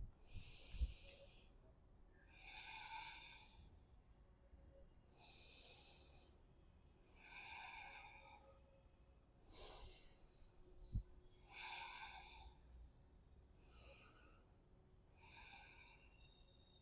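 A woman breathing slowly and deeply through her nose in a seated yoga pose, inhales and exhales alternating about every two seconds for roughly four full breaths, faint. Two soft low bumps come about a second in and about eleven seconds in.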